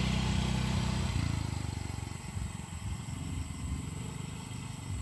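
Small step-through scooter's engine running as it passes close and rides away, its note fading out about a second in and leaving only a faint low rumble.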